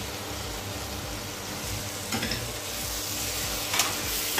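Poha (flattened rice) frying on top of vegetables in a hot pan with a steady sizzle. A spatula scrapes and knocks against the pan about two seconds in and twice near the end as stirring begins.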